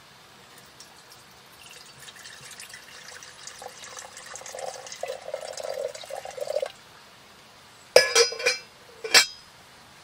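Water poured from a glass jar into an enamel kettle, growing louder over about five seconds and then stopping abruptly. About a second later come a few sharp clinks, with one more near the end, as the enamel lid is set on the kettle.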